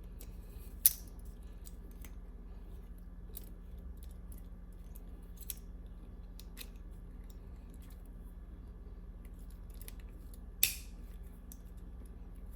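Small metallic clicks and ticks from a paperclip being worked in the lock of ASP Sentry chain handcuffs to shim them open, with a sharp louder click about a second in and another near the end.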